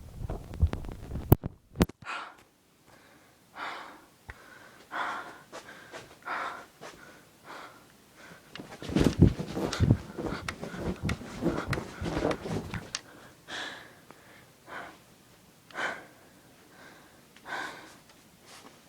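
A person breathing heavily and raspily, one breath about every second. There are two sharp clicks near the start, and a louder stretch of low knocking and rumbling in the middle.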